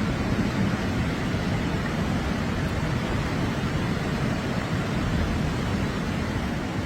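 Rushing floodwater: a steady, dense noise of fast-moving water with no breaks.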